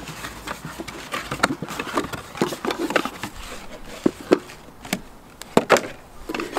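Cardboard box being opened and handled, with paper rustling and flaps scraping, as a round metal cook pot is lifted out. Scattered light clicks and taps, a few sharper knocks in the second half.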